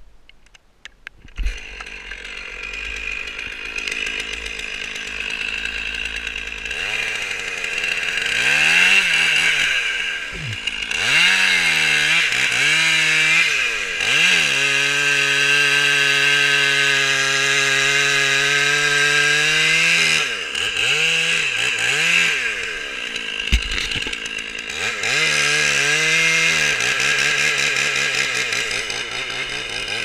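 Gas chainsaw running, revved up and down, then held at full throttle while cutting into a standing tree trunk. The engine begins about a second and a half in and revs up and down several times between long, steady stretches of cutting.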